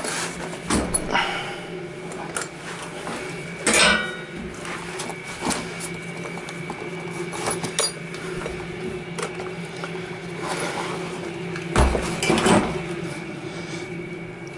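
Irregular knocks and clatters of hands, boots and a tool bag against a steel wall ladder's rungs while climbing it, the loudest cluster near the end, over a steady mechanical hum with a faint high whine.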